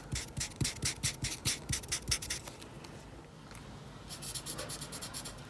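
Marker tip scratching on thick drawing paper in rapid back-and-forth colouring strokes, about five a second; the strokes pause briefly past halfway, then resume faster.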